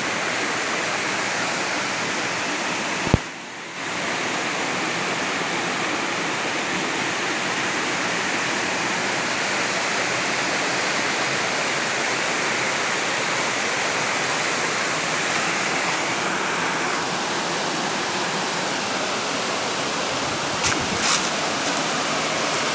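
Waterfall rushing steadily. A sharp knock about three seconds in, then a brief drop in level, and a couple of clicks a couple of seconds before the end.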